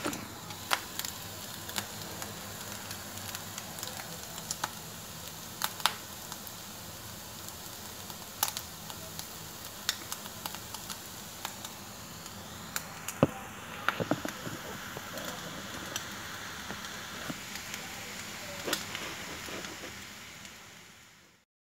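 Fried potatoes and scrambled egg sizzling in a frying pan, with scattered pops and crackles. The sound fades out near the end.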